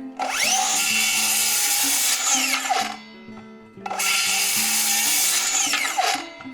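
Bosch GKS 18V-68GC cordless brushless circular saw run twice: each time the motor spins up with a rising whine, runs loud for about two seconds, then winds down with a falling whine.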